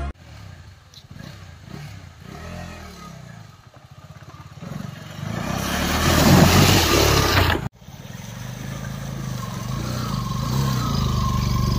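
Motorcycle engines running as bikes ride through a shallow stream crossing. From about five seconds in, an engine revs and water splashes loudly, and this cuts off abruptly near eight seconds. After that another motorcycle engine runs and gradually gets louder.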